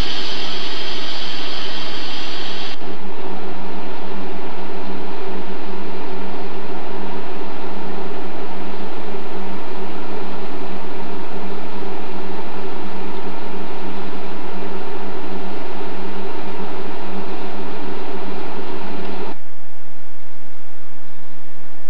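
SNCF BB 22200 electric locomotive running, a steady mechanical hum and hiss with two low steady tones. The hiss drops away abruptly about three seconds in and again near the end, leaving a fainter hum.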